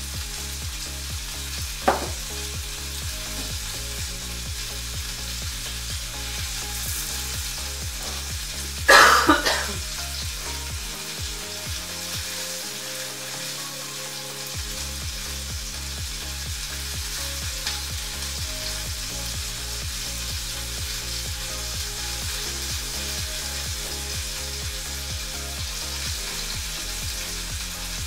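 Kitchen handling noises over a steady crackling hiss: linen proofing cloths rustling as loaves are lifted. There is a small click about two seconds in, and a louder metallic clatter with a short ring about nine seconds in, likely the steel baking pot.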